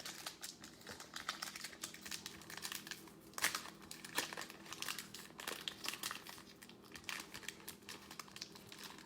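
Cellophane wrapper of a 2020 Prizm football cello pack crinkling as it is opened and handled: a dense run of small plastic crackles, loudest about three and a half seconds in.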